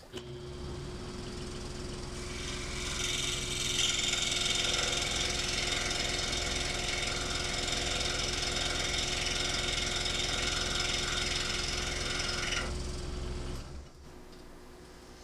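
Scroll saw running and cutting plexiglass, trimming the ends off gear teeth. A steady motor hum carries a higher cutting noise on top from about two seconds in until near the end. Then the saw goes quiet.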